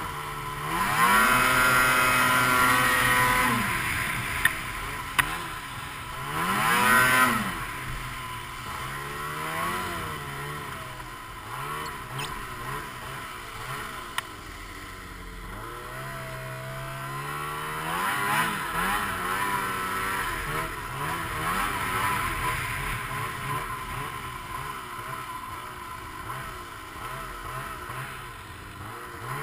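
A Ski-Doo GSX 500SS snowmobile's two-stroke engine revving hard as it drives through deep snow. It climbs sharply about a second in, rises again around seven seconds, runs lower through the middle, and picks up again in the second half, over a steady rush of wind and snow.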